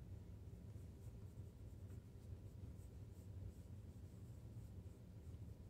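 Faint scratching of a graphite pencil shading in short strokes on sketchbook paper, over a low steady hum.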